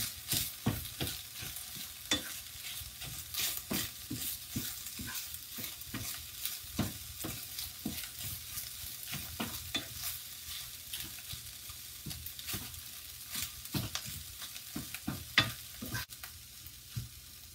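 Chicken, carrots and snow peas sizzling in hot oil in a pan while a utensil stirs and tosses them, scraping and clicking against the pan at irregular intervals.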